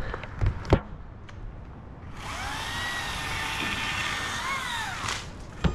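Two sharp knocks in the first second. Then an electric battery chainsaw's motor spins up with a rising whine, runs steadily for about three seconds, and winds down.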